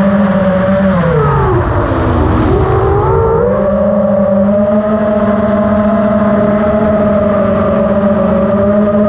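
Brushless motors of a 5-inch FPV racing quad (Lumenier RX2206 2350KV) spinning DAL Cyclone 5050C props, heard from the onboard camera as a steady buzzing whine. About a second in the pitch drops as the motors slow, then it climbs back by about three and a half seconds and holds steady.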